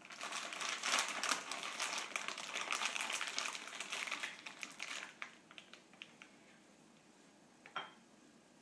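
Plastic pepperoni bag crinkling as a hand rummages in it for slices, for about five seconds, then a few faint ticks and one sharp click near the end.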